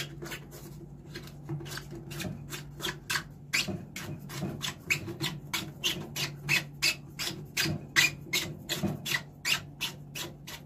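Plastic flush-pipe nut at the back of a toilet pan being screwed up by hand, the plastic threads and fitting making a run of short scraping strokes, about three a second.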